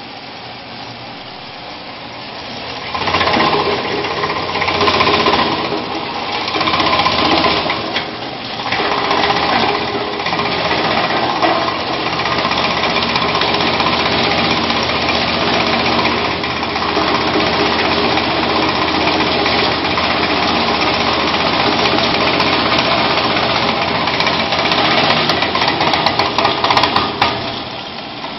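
Tyre-cutting machine of a tyre recycling line running under load as scrap tyre rubber is fed through its rollers and cutters. The noise is steady and mechanical, grows much louder about three seconds in, and surges unevenly for several seconds before settling.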